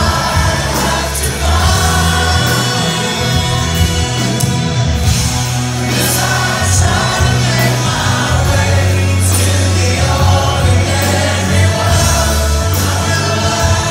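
A live rock band performing a song, a male lead vocal over electric guitars, keyboards and a strong, sustained bass line, heard from within the audience.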